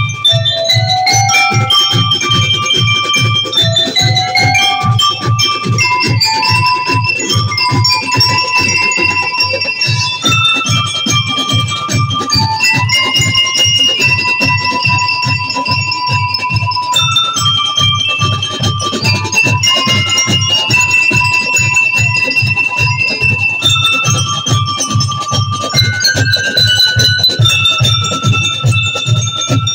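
A children's drum and lyre band playing: bell-like lyre and mallet-percussion notes carry the melody over a steady beat of bass and snare drums. The drum beat drops back briefly about ten seconds in.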